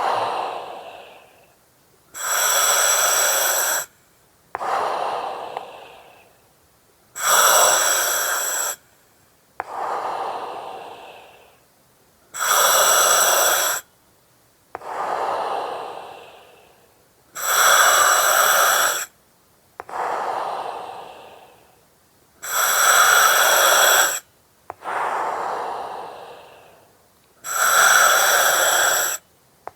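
Slow, regular breathing through an oxygen mask, about one breath every five seconds. Each breath is a hiss from the regulator with thin whistling tones that starts and stops sharply, followed by a softer rush of air that fades away.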